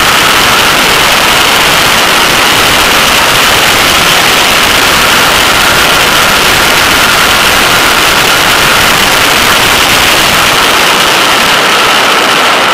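Loud, steady wind rush over a camera microphone mounted outside a Porsche 911 at track speed, with the car's flat-six engine faintly audible beneath as a steady tone.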